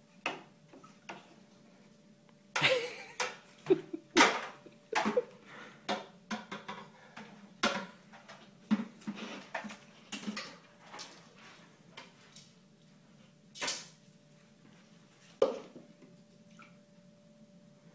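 Irregular knocks and rattles of hard plastic pet feeders and scattered dry dog kibble being handled, with a busy cluster of clatter a few seconds in and single knocks after.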